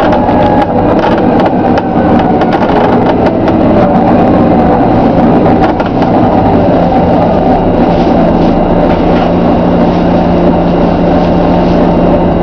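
Volvo B9TL double-decker bus with Wright Eclipse Gemini body, heard on board: the 9-litre six-cylinder diesel running with its pitch shifting, over frequent creaks and clicks from the bus body in the first half. About seven seconds in, a steady low drone settles in.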